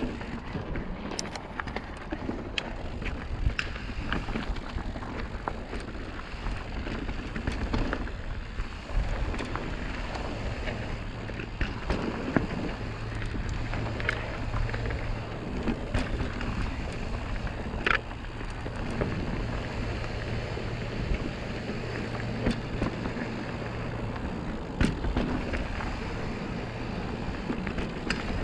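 Mountain bike rolling down a dusty, rocky dirt trail: steady tyre noise on dirt with scattered sharp knocks and rattles as the bike goes over rocks and roots. A low steady hum runs through much of the middle.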